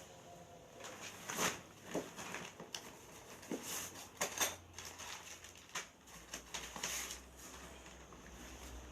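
Irregular rustling and clicking of tent gear and its packaging being handled, a few sharper clicks standing out.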